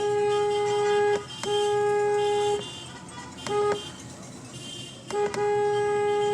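A car horn honked in a pattern at one steady pitch: two long blasts of about a second each, a short toot, then a quick toot followed by a longer blast.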